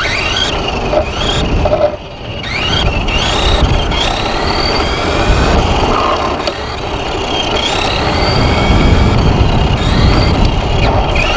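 Team Associated SC10 brushless RC short-course truck heard from on board: the electric motor and drivetrain whine, rising in pitch again and again as the throttle is pulsed, over a steady rumble of tyres and wind on the pavement. The sound drops briefly about two seconds in before picking up again.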